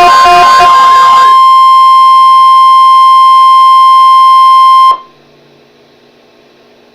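Emergency alert attention tone: a loud, steady single-pitch tone near 1 kHz, typical of the NOAA Weather Radio 1050 Hz warning alarm. Music plays over it for about the first second. The tone cuts off suddenly about five seconds in, leaving a faint hum of dead air.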